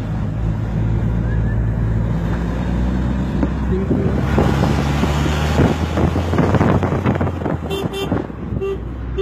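A car engine runs steadily while driving. Wind rushes loudly past an open window for several seconds in the middle, and a few short horn toots sound near the end.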